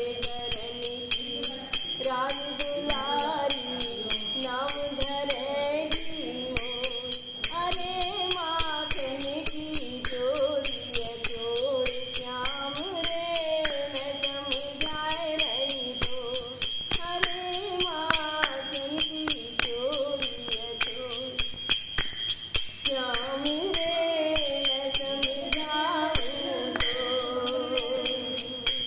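A woman singing a devotional kirtan solo, her melody rising and falling in long lines over a steady clinking beat of small metal percussion.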